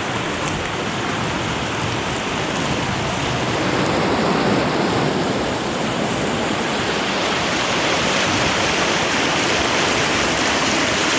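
Flooded, fast-running creek rushing and churning in a steady loud roar of water.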